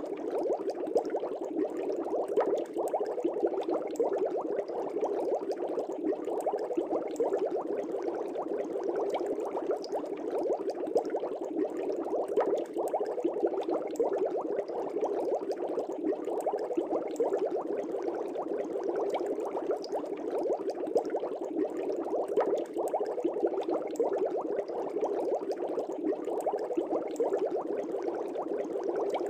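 Fish tank air bubbles streaming up and breaking at the water surface in a steady, dense bubbling.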